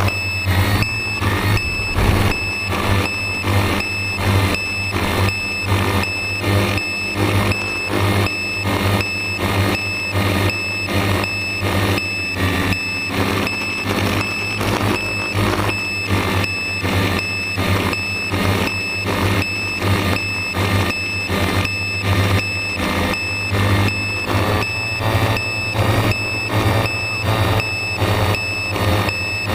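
Quadcopter drone's motors and propellers humming steadily, with a regular electronic beeping pulsing about twice a second.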